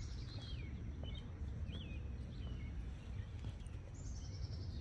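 Songbirds singing: a high descending trill right at the start and again about four seconds in, with short chirps between, over a steady low rumble.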